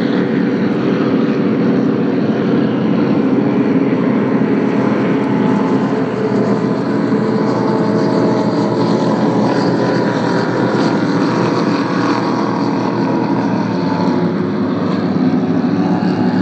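Motorboat engine running with a steady drone, over the rush of water and wind.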